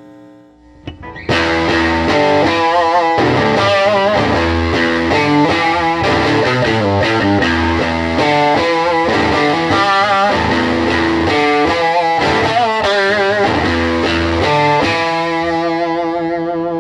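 Electric guitar played through a Fender Pro Junior IV tube amp turned all the way up, giving a gritty, overdriven tone. A riff of chords and single notes starts about a second in and ends on a held chord that rings out.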